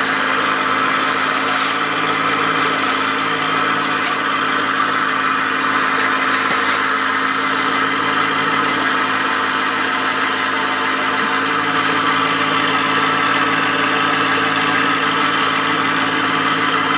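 A fishing boat's engine running steadily, an even hum that holds the same pitch throughout.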